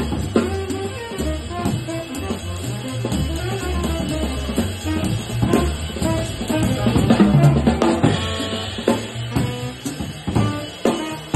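Live small-group jazz: a drum kit played with sticks, with cymbal and drum strikes throughout, over upright double bass notes and horn and keyboard lines.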